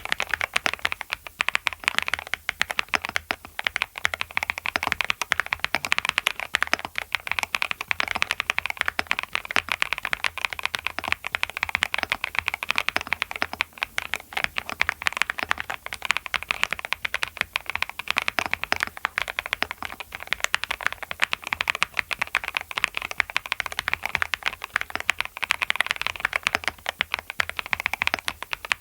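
Fast, continuous typing on a custom QK65 mechanical keyboard with Clackbits linear switches: a dense stream of key clacks.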